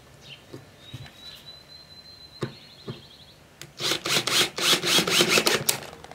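DeWalt cordless drill driving a screw into a pine board, heard as a loud run of rapid pulses lasting about two seconds, starting nearly four seconds in. Before it, a few faint clicks of handling the screw and board.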